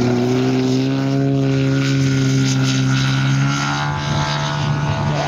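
Hand-built 500cc flat-four engine of a 55% scale model Yak 54 running at take-off power, driving its propeller with a steady deep drone. The pitch shifts about four seconds in as the plane lifts off and climbs away.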